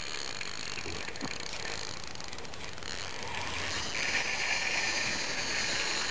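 Spinning reel clicking like a ratchet, with a carp hooked on 2 lb test monofilament. There is a fast run of clicks midway, and the sound becomes a steadier high buzz from about two-thirds of the way in.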